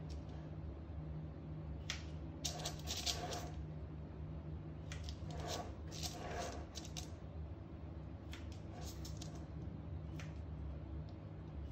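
Kitchen scissors snipping into sourdough dough to cut small points along the score lines: short clicking snips of the metal blades closing, in small clusters every second or two.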